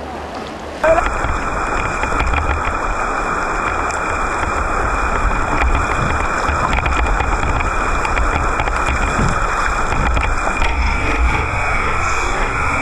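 Steady rushing noise of river water, with wind buffeting the microphone in an uneven low rumble; it starts abruptly about a second in.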